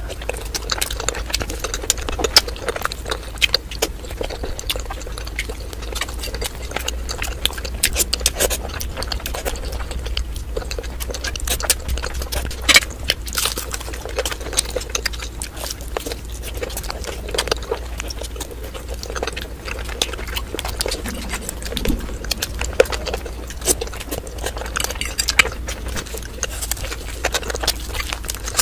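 Close-miked eating sounds: a steady run of wet clicks, smacks and chewing as a person eats a steamed momo dumpling and a fried chicken lollipop, with a steady low hum underneath.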